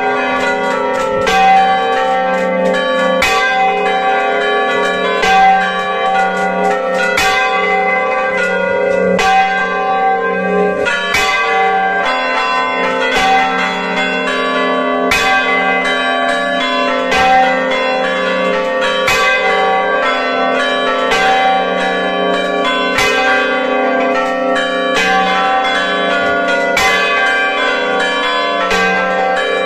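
Church bells of a five-bell ring in G ringing close up in the belfry: the large bell swinging and sounding, with the other bells struck alongside it ('grossa accompagnata'). Strikes come about once a second over a continuous ringing hum.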